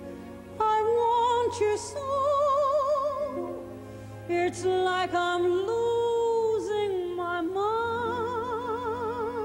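A woman singing a slow ballad into a microphone, holding long notes with a wide vibrato, over a soft orchestral accompaniment. The phrases break off briefly near the start and again about four seconds in.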